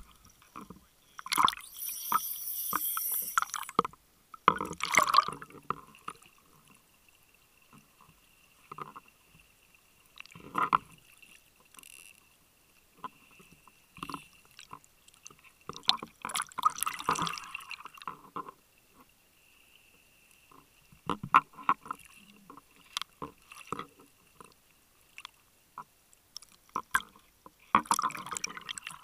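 Water bubbling and gurgling underwater just below the surface, in irregular bursts every several seconds, with small scattered clicks between them and a faint steady high whine.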